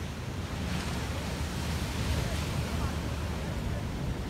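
Surf breaking on a sandy beach, a steady wash of waves, with wind rumbling on the microphone.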